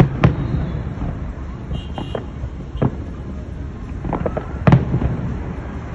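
Aerial firework shells bursting overhead: several sharp bangs with a rumbling trail, at irregular intervals. The loudest come right at the start and again near the end.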